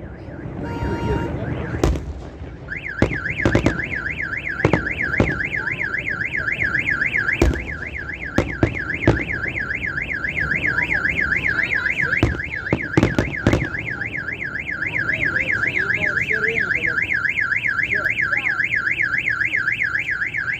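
Fireworks shells bursting in a string of sharp bangs that thin out after about fourteen seconds. From about three seconds in, a car alarm sounds under them: a fast warbling tone rising and falling several times a second, steady and unbroken.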